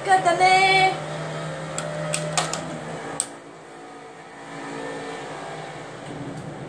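A few sharp clicks and knocks as a small black electric kitchen appliance on a cord is picked up and handled, over a steady low hum.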